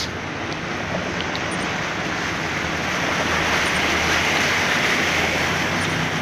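Steady rushing of rain and floodwater heard from inside a vehicle driving through a flooded street, over the low hum of its engine; the rush swells about halfway through.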